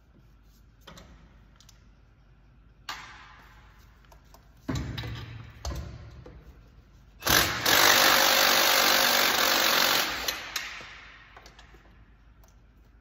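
A few sharp metal knocks, then a handheld power tool running in one steady burst of about three seconds, the loudest sound here, as the exhaust header is worked loose.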